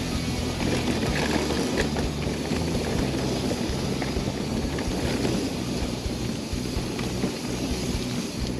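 Wind rushing over the camera microphone and tyres rolling on a dirt trail as a mountain bike descends at speed, with a few light clicks and knocks from the bike.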